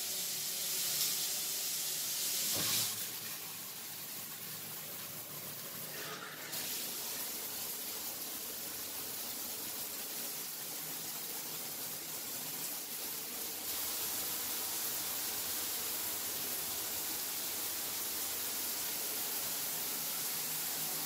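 Steady rush of water from a chrome bath mixer, first pouring from the spout into an acrylic bathtub, then falling from the ceiling-mounted rain shower head switched on through the diverter. The sound shifts about three seconds in and grows louder later on.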